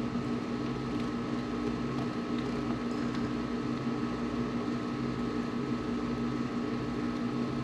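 A steady mechanical hum with a low droning tone and no sudden events.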